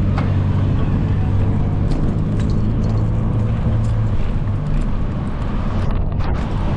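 Wind rushing over the microphone of a moving bicycle, with road traffic and a motor vehicle's low engine hum that fades about four and a half seconds in.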